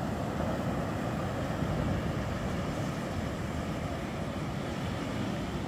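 Steady rush of surf breaking on a beach, with a fluctuating low rumble of wind on the microphone.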